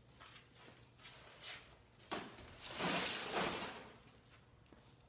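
Scraping and rustling as a gloved hand drags and bends a heated 4-inch PVC pipe across a workbench, with a louder swish in the middle.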